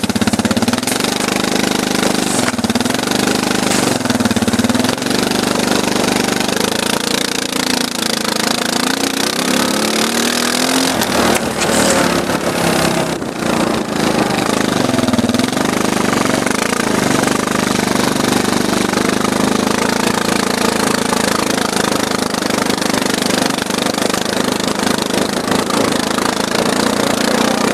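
Arctic Cat 250 ATV engine running under load as it tows snowboarders on ropes, its pitch rising and falling with the throttle.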